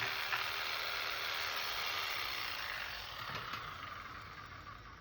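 Jigsaw winding down after cutting a notch in the wood, its sound fading away over several seconds.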